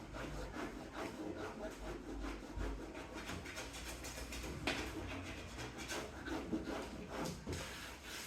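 Repeated, irregular rubbing strokes against a car's hood panel during body-repair prep, at roughly two or three strokes a second.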